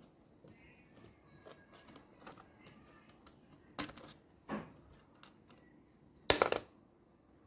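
Small parts of a wall clock's quartz movement being handled and pulled apart: scattered light clicks and taps, a sharper click about halfway through, and a quick run of louder clicks a little after six seconds.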